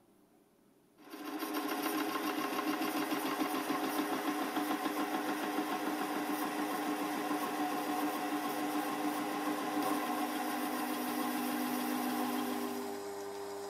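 Chinese mini lathe turning steel, the tool taking a heavy cut: steady motor and gear whine under a dense hiss and crackle of hot chips coming off the work. It starts suddenly about a second in, and near the end the cutting noise stops, leaving a quieter steady machine hum.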